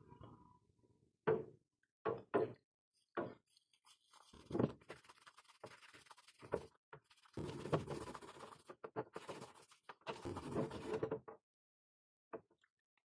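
A few short knocks, then a hand-held steel wire brush scrubbing the rusty steel pincers: repeated scratchy strokes for about seven seconds, which stop abruptly near the end. The brushing clears loosened rust from the pincers after a spell in the electrolysis bath.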